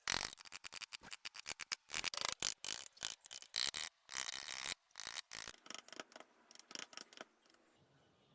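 Carving tool scraping wood in quick, short, irregular strokes that click and rasp, thinning out and stopping about seven seconds in.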